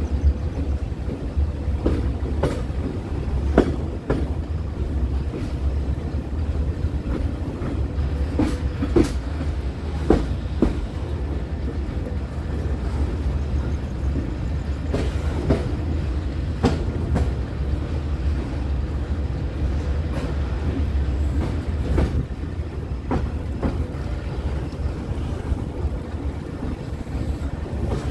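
Passenger train running on rail with a steady low rumble, and wheels clacking sharply over the track at irregular intervals.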